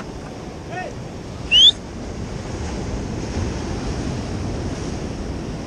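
Ocean surf washing against a rock jetty, with wind buffeting the microphone. The wash swells a little about two seconds in. A brief high-pitched rising chirp about one and a half seconds in is the loudest sound.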